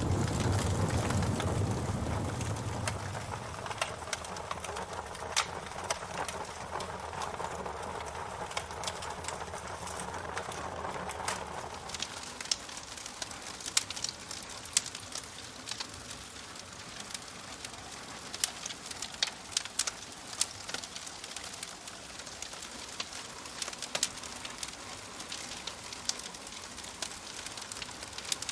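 Wood fire crackling, with sharp pops that come more often in the second half. A low rumble at the start fades away over the first few seconds.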